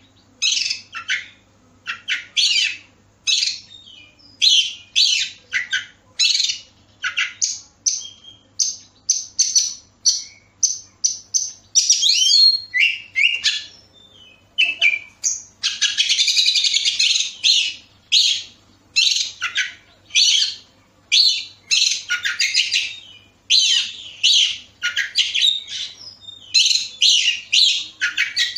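Oriental magpie-robin singing: a fast, varied run of whistled and chattering phrases, one or two a second, with one longer, denser phrase about halfway through.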